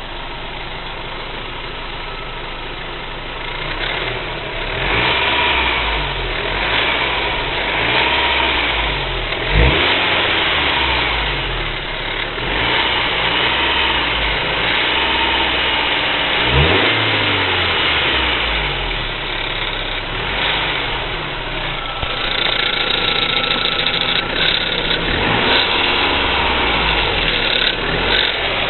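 BMW E46 318i four-cylinder petrol engine running, idling with the revs raised and let fall several times. The engine makes noises that the owner suspects come from the hydraulic lifters; the DISA valve is also defective.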